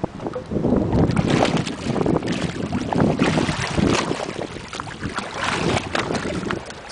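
Water splashing and churning as a large hooked fish thrashes at the surface beside the boat, with wind buffeting the microphone.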